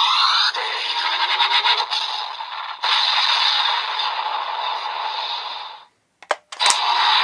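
DX Vision Driver toy belt playing its Glare 2 electronic sound effect through its built-in speaker: a harsh, static-like noise with rapid stuttering near the start. It cuts out suddenly near the end, and a few sharp clicks follow before the sound resumes.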